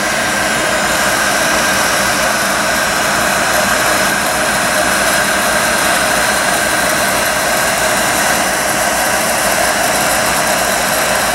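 Handheld heat gun running steadily, a rushing blow with a steady whine, as it heats the aluminum engine case around the bearing bore so the bearing will drop out.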